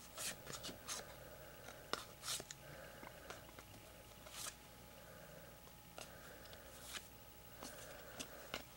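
Faint rustling and light clicks of baseball trading cards being handled and flipped through by hand, in short irregular bursts.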